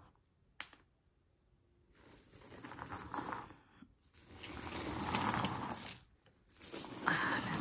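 Costume jewelry being sifted by hand: metal chains, beads and trinkets clinking and rattling against each other. There is a single click about half a second in, then a quiet second, then three stretches of rattling.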